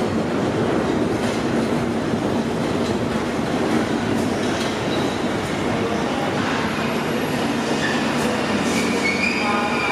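London Underground 1972 Stock tube train running into the platform and slowing, a steady loud rumble of wheels on rail with some clicks from the wheels, and a brief high squeal near the end as it comes to a stand.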